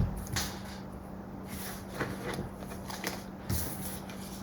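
Tarot cards being shuffled and handled as a card is drawn from the deck: a few short, separate papery flicks and slides spread over several seconds, over a faint steady low hum.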